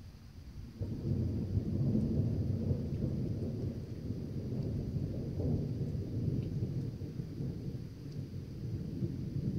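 Rolling thunder: a low rumble that jumps up sharply about a second in, is loudest over the next couple of seconds, then rolls on, slowly easing.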